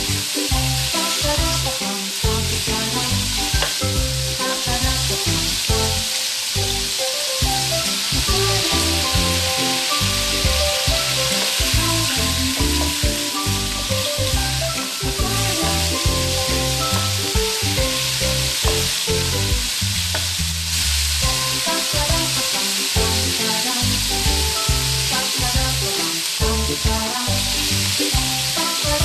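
Pork rib pieces sizzling steadily as they fry in a wok, turned now and then with a wooden spatula, over background music.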